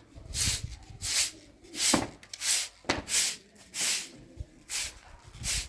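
Rhythmic scraping strokes, about eight evenly spaced hissing sweeps at a steady working pace, like a tool being worked by hand.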